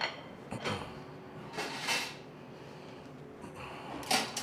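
Kitchen handling noises: a few knocks, a brief scrape and a clatter near the end as bowls and utensils are moved about on a stainless-steel counter.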